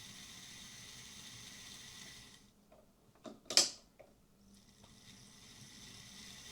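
Newly fitted motor and gears of a Hornby Class Q6 OO gauge model steam locomotive running on a rolling road with a faint, steady whine, then stopping about two seconds in. A couple of sharp clicks follow, the louder one around the middle.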